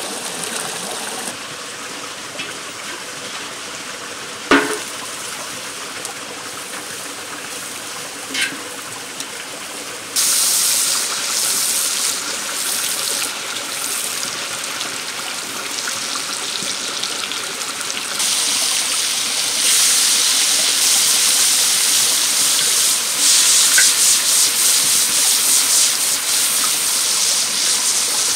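Hot fat sizzling in a steel pan over a wood fire, starting suddenly about a third of the way in and getting louder about two-thirds in, with chopped onions frying in the oil by the end. Before the sizzle starts there is a steady rushing like running water, with a sharp crack about four and a half seconds in.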